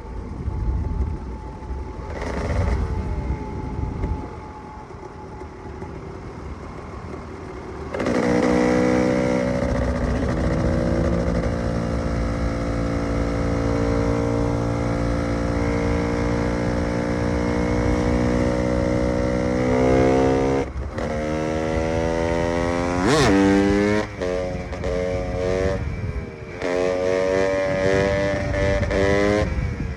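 KTM EXC 300 two-stroke enduro motorcycle engine. It is quieter for the first eight seconds or so, then runs loud at steady high revs. About 23 s in it revs sharply once, and near the end it gives a series of short throttle blips.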